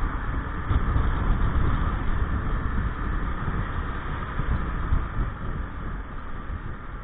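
Gilera Nexus 500 maxi-scooter's single-cylinder engine running steadily while riding along at town speed, mixed with wind and road rumble on the camera.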